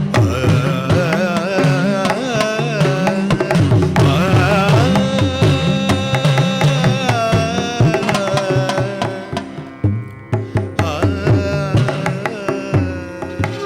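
Live Carnatic-style music: an ornamented melody line that bends and slides in pitch, over a steady rhythm of hand-drum strokes. It thins out briefly about ten seconds in, then carries on.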